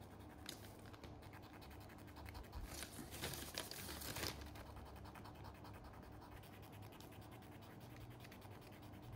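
Faint scratching of a cotton bud rubbed in short strokes across textured canvas, laying on acrylic paint; the scratching is loudest about three to four seconds in.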